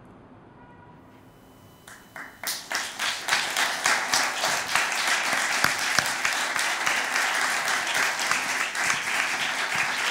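Audience applauding: after about two seconds of near quiet, the clapping starts, swells quickly and then holds steady.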